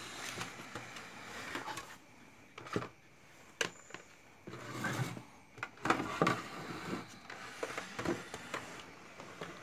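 Hands handling an opened amplifier chassis and its wiring: irregular clicks, taps and rustling, with several sharper knocks scattered through.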